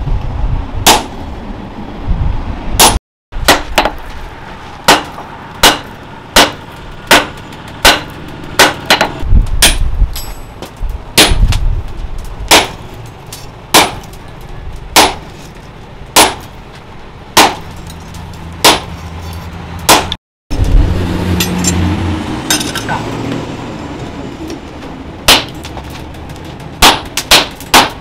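Hammer blows striking a handled top tool held on red-hot steel on an anvil while a hammer head is forged from round bar. There is a steady rhythm of sharp, ringing metallic clangs, about one a second and at times a little faster.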